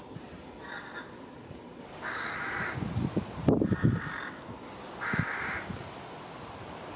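Carrion crows cawing: a faint caw about a second in, then two louder, harsh caws a few seconds apart. A few low thumps come around the middle.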